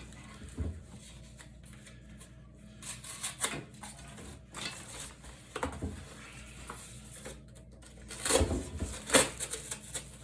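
Folding knife blade slicing and tearing through single-wall corrugated cardboard in short, irregular scraping strokes. The loudest cuts come near the end.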